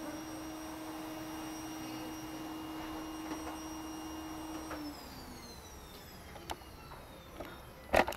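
A small electric motor runs with a steady hum, shuts off about five seconds in, and winds down with a falling whine. A few light clicks follow, then a sharp knock near the end.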